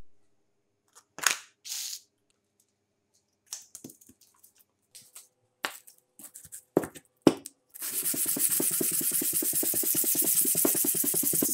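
A few rustles and knocks from sandpaper sheets and the blade holder being handled and set down. About eight seconds in, a steady gritty scraping starts as the rusty knife blade, clamped in a hand-held holder, is sanded back and forth on sandpaper laid flat.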